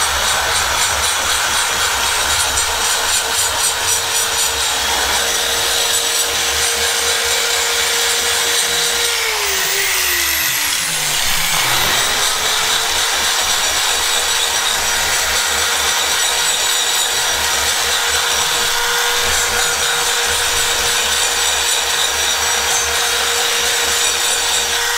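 Die grinder with a burr porting a cylinder head: a steady high whine of the motor under the rasping of the burr cutting metal. About halfway through, the grinder spins down and then spins back up to speed.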